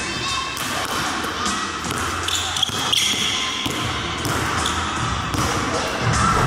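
A basketball bouncing on a hardwood gym floor during a dribbling drill, with a voice running over it.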